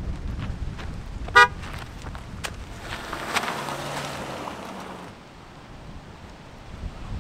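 Car horn giving one short, loud toot about a second and a half in, followed by a noisy rush lasting about two seconds with a sharp hit in the middle, over a low rumble.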